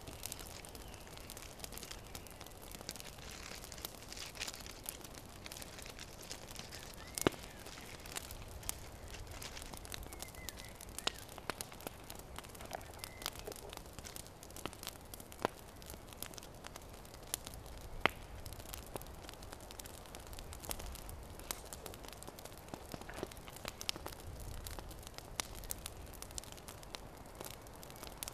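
Paper wrapping crinkling and rustling, with a knife working on a wooden stick, over scattered sharp crackles from a bed of campfire embers; two snaps stand out above the rest.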